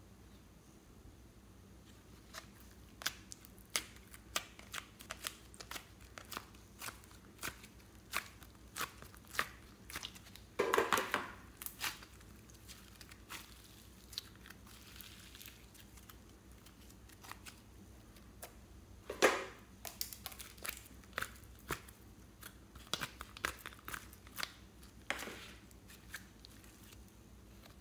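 Slime being pulled, pressed and kneaded by hand: an irregular run of small sticky pops and clicks, with a few louder, longer squishes.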